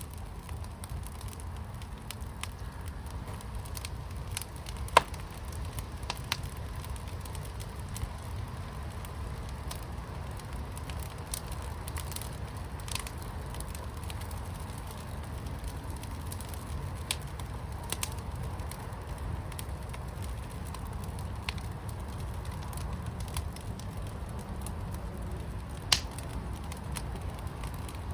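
Fire in a fire pit crackling, with scattered small clicks over a steady low rumble and two sharp, loud pops, one about five seconds in and one near the end.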